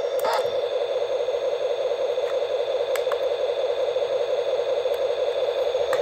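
Remote-control toy fire truck running: a steady mid-pitched hum with a few small clicks.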